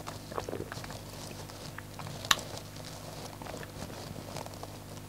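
Soft mouth sounds of someone tasting a mouthful of beer: small lip smacks and clicks, with one sharp click a little over two seconds in, over a low steady hum.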